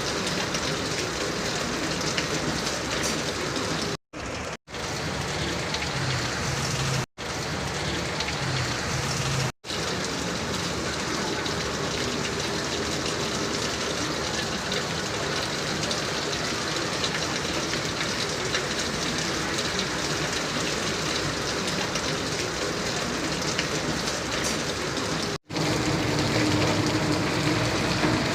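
Heavy rain falling steadily, a constant hiss. The sound drops out for an instant several times and changes slightly after the last dropout near the end.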